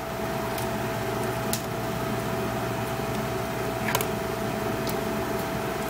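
A steady machine whir with a constant whine, and a few faint clicks as the phone's plastic frame is handled.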